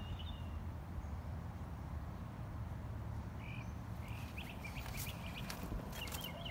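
Outdoor background: a steady low rumble with high chirping animal calls coming in a few times, turning into a fast run of repeated chirps near the end. A few sharp clicks sound about two-thirds of the way through.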